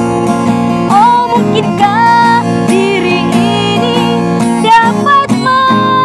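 A woman singing a slow Malay song in a high voice with wavering, ornamented notes (cengkok), over a strummed acoustic guitar. The guitar plays alone at first, and the voice comes in about a second in.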